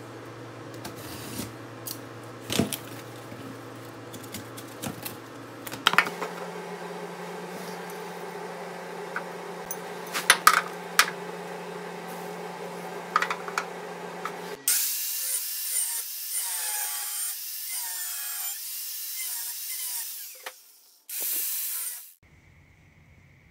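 Shop work on steel tube sliders: a utility knife scraping and clicking as it cuts a cardboard template against a metal straightedge, with a steady low hum. Then comes a harsher, hissing tool sound and a short, loud burst of a power tool cutting steel.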